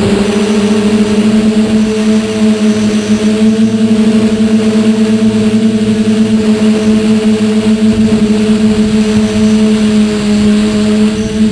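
Motors and propellers of a TBS Discovery quadcopter in flight, picked up by the GoPro mounted on it: a loud, steady buzzing hum holding one pitch, over a rush of air.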